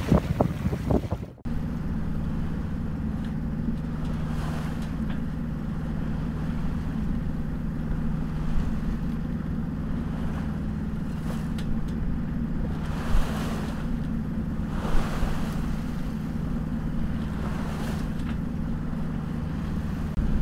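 Wind buffets the microphone for the first second or so. Then a sailboat's inboard engine runs with a steady low hum as the boat motors under way, and water swishes along the hull a few times.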